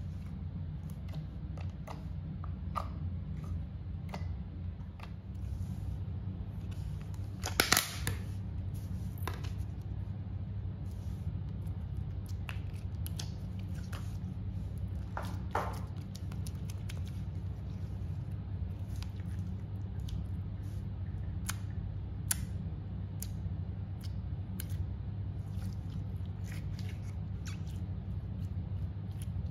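Hands squishing, stretching and pressing slime, giving scattered sticky clicks and small pops, with one louder crackle about eight seconds in, over a steady low hum.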